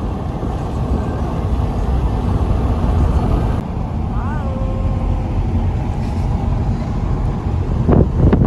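Steady road and wind noise of a car travelling at highway speed, a dense low rumble, with a short rising-and-falling tone about four seconds in.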